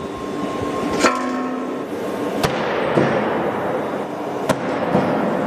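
Three 4 kg steel balls dropped from 9 m striking an anti-theft safety glass pane in a ball-drop test: three sharp impacts about a second and a half apart, the first followed by brief ringing, with a fainter knock between the second and third. No ball breaks through; the pane holds.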